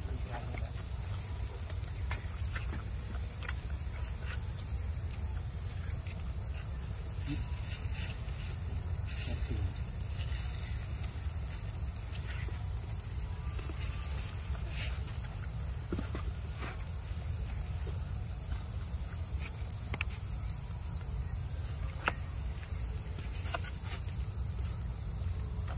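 A steady, high-pitched insect chorus droning without a break, over a low rumble and a few faint scattered clicks.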